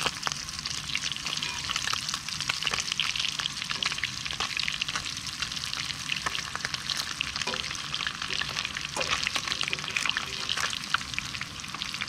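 Breaded sunfish fillets sizzling steadily in hot oil in a skillet, with scattered light clicks and scrapes of a fork against the pan as the fillets are turned over.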